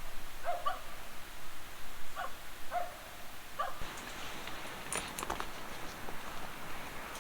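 Jindo-mix dog giving about five short, high whines in the first few seconds, followed by light clicks and rustling.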